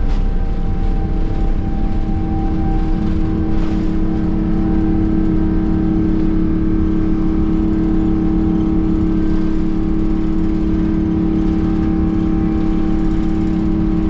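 Boeing 777-200ER's engines at takeoff thrust, heard inside the cabin: a loud, steady rumble with a steady hum over it, through the takeoff roll, liftoff and first climb.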